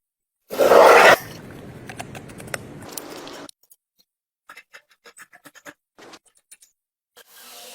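Scratching and scraping on metal parts, typical of rust being cleaned off by hand. There is a loud rush about half a second in, then a quieter steady scrape, then after a pause a run of short separate scratches.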